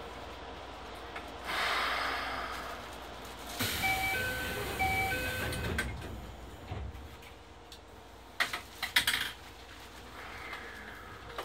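Door-closing chime of a Toei 10-000 series subway car: a two-note chime played twice. It follows a burst of hiss, and a few seconds later comes a quick cluster of sharp knocks as the sliding doors shut.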